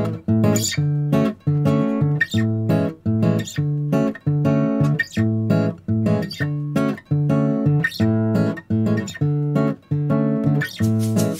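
Background music: guitar playing a steady, evenly plucked pattern of chords, about two notes a second.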